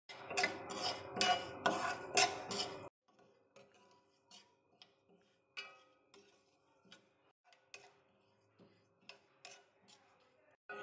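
A metal spoon stirs flaxseeds in a stainless steel kadhai while they roast, scraping and clicking against the pan. The stirring is busy for about the first three seconds, then fades to scattered faint clicks.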